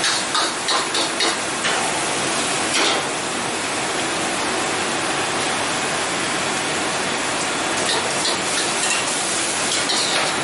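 Hokkien mee noodles sizzling and bubbling in stock in a steel wok over a gas burner: a steady hiss. A metal ladle clanks and scrapes against the wok several times in the first few seconds and again near the end.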